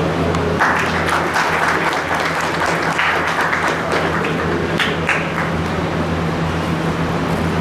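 Audience clapping, starting about half a second in and dying down after about five seconds, over a steady low hum.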